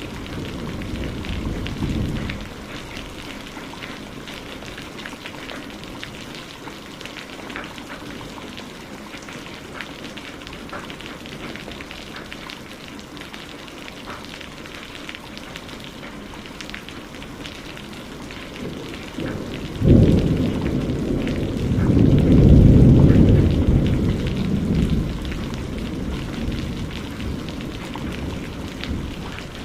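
Steady rain pattering, with low rolls of thunder. A rumble fades out in the first two seconds, then a sudden crack about two-thirds of the way in swells into a long roll that dies away.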